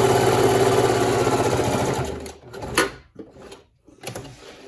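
Domestic sewing machine running at speed, zigzag top-stitching elastic onto stretch Lycra at a leotard leg opening; the machine stops about two seconds in. A sharp click follows, then light handling noises.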